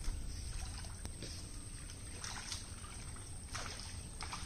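Muddy pond water splashing and sloshing as hands grope through the shallows for fish, with a few short splashes spaced about a second apart. A brief knock comes at the very start.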